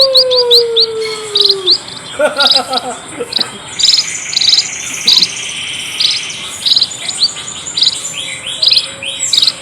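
A flock of munias (emprit) chirping: short, high chirps repeated about twice a second. A long, lower call falls slowly in pitch near the start, and a high buzzing hum joins from about four seconds in.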